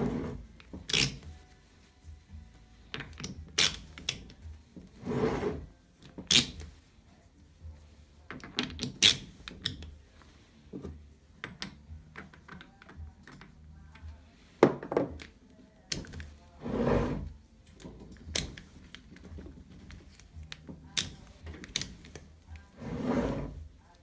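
Steel jaws and key of a Schunk ROTA-S plus 160 three-jaw lathe chuck being handled: irregular metallic clicks and clunks as jaws are slid out and refitted, with a few duller thumps now and then.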